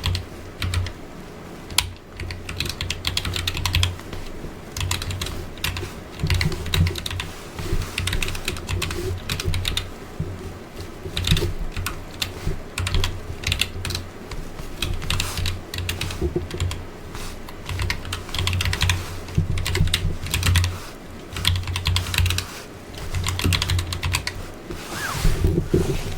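Typing on a backlit computer keyboard: a continuous, uneven run of key clicks with soft low thuds as the keys bottom out, in bursts with short pauses.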